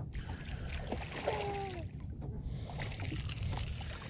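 Wind rumbling on the microphone with water sloshing and splashing around a small flat-bottomed boat while a fish is played on rod and line. A short falling tone sounds a little over a second in.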